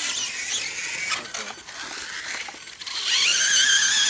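Electric motor of a 6S LiPo-powered RC off-road model whining up and down with the throttle, with scattered clicks and knocks. About three seconds in, the whine climbs and holds high and loud.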